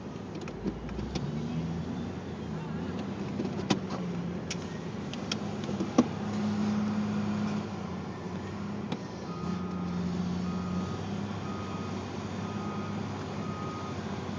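A motor vehicle's engine running with a low hum that shifts in pitch. From about two-thirds of the way in, its reversing alarm beeps steadily in short, evenly spaced beeps. A few sharp clicks come in the first half.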